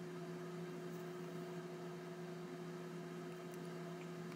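Steady low electrical mains hum with a faint hiss under it.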